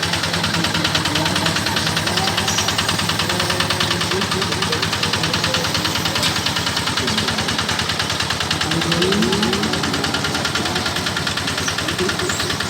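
Kubota RD 110 single-cylinder diesel engine of a mini rice combine harvester running steadily, with a rapid, even firing beat.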